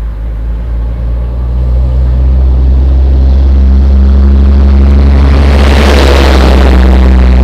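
Motor vehicle driving past on a road: a low engine hum grows louder over the first couple of seconds, with a swell of tyre and engine noise loudest about six seconds in.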